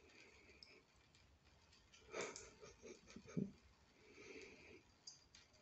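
Quiet, soft sounds of a cat lapping at a thin trickle of tap water: a short breathy snort about two seconds in, then a run of small wet clicks with one louder knock near the middle.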